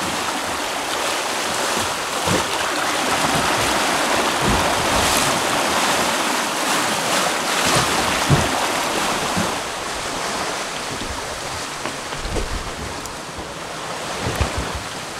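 Steady rush of churning water and waves in a sailing catamaran's wake, with wind buffeting the microphone in low thumps.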